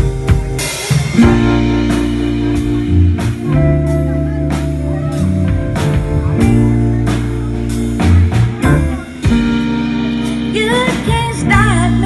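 Instrumental intro of a pop song: a drum kit, bass and guitar playing over a steady beat, with a singing voice coming in near the end.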